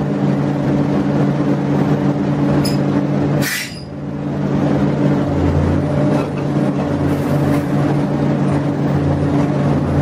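Heavy diesel engines of the excavators running steadily under load as they lift an overturned wheel loader. About three and a half seconds in there is a short sharp noise, and the level dips briefly before the engines carry on.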